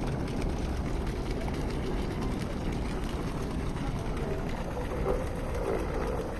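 Steady low rumbling outdoor background noise with no distinct events, and faint voices near the end.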